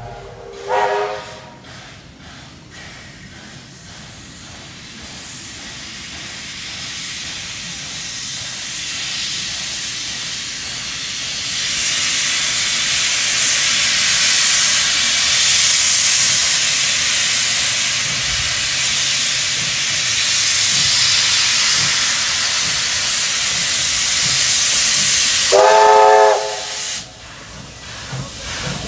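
Steam locomotive 3016, leading a double-headed train, approaches and passes close by. It gives a short whistle toot about a second in, then a steady steam hiss builds as it nears, and a long, loud whistle blast sounds near the end. The low chuff of the exhaust beats follows as it goes by.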